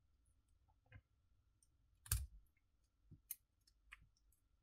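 A few scattered light clicks and taps of plastic and circuit-board parts as the small speed/mode-select board is worked free of a Milwaukee M18 FUEL impact driver's inner housing; the sharpest click comes about two seconds in.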